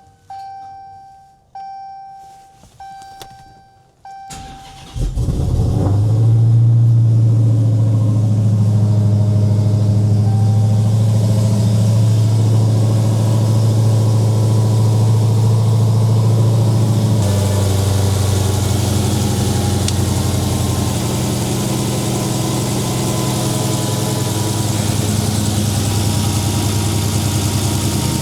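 A chime sounds four times, then the Dodge Demon's supercharged 6.2-litre Hemi V8 cranks and catches about five seconds in and idles steadily, loud and low.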